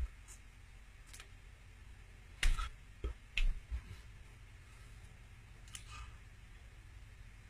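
Scattered soft thumps and clicks from hands striking the chest and each other while signing, the loudest about two and a half seconds in and a short cluster of low thumps just after, over a faint steady room hum.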